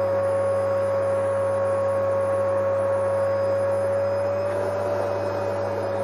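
Vacuum cleaner running steadily: a constant motor whine over an even rushing hiss, its pitch lifting slightly for a moment near the end.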